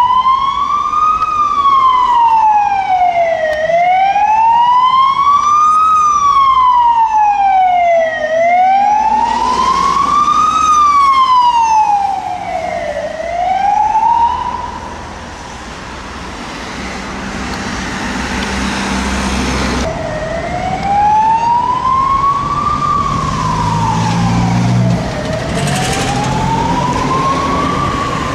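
Emergency vehicle siren on a slow wail, rising and falling about every four to five seconds, over city traffic. Past the middle the siren drops out for a few seconds, leaving traffic and engine noise, then the wail starts again.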